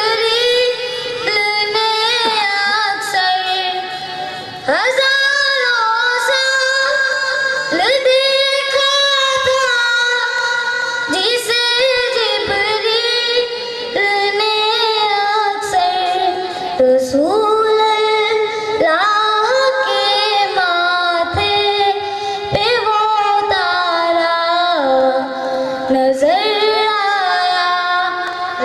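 A boy's solo voice singing a naat, an Islamic devotional poem chanted without instruments, in long held notes that slide up and down between phrases.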